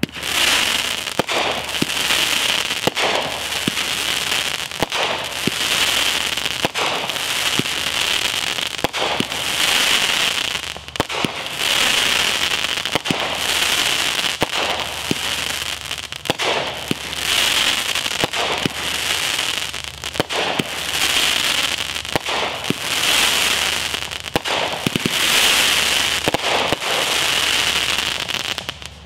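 A 200-gram, 16-shot consumer firework cake (Enigma's Draco) firing shot after shot, a sharp launch report every one to two seconds. Each launch is followed by a swelling crackle as the time-rain tail and crackling willow break in the sky.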